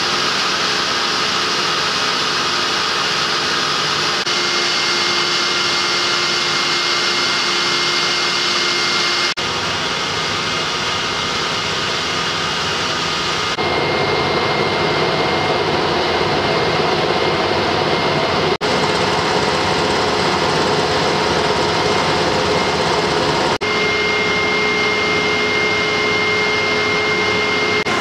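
Container ship's engine-room machinery running steadily: a loud, even drone with held whining tones. The mix of tones changes abruptly four times.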